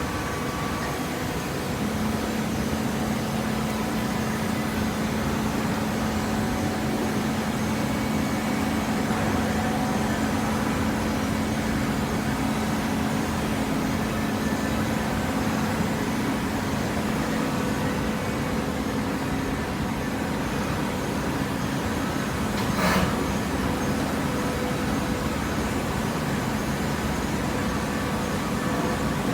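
Horizontal hydraulic cardboard baler running: a steady mechanical hum from its hydraulic pump and motor, with one sharp clank about 23 seconds in.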